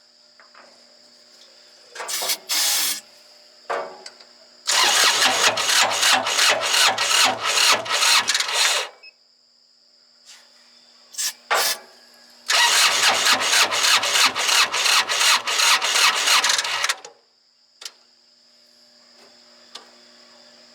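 Starter cranking the Kubota D1105 three-cylinder diesel of a MadVac 101D rider vacuum, first in two short bumps, then in two long cranks of several seconds each with a steady beat of about three to four compression strokes a second. It turns over without catching: the battery is too weak to keep it cranking fast enough to start.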